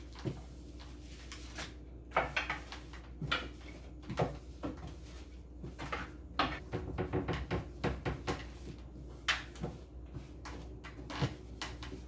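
Irregular knocks and clatters of containers and cupboard parts being handled inside a kitchen cupboard as it is emptied and cleaned, with a denser run of them past the middle.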